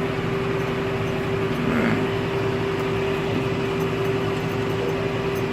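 John Deere 6930 tractor's six-cylinder diesel engine running steadily while ploughing, with a steady high hum over the engine drone.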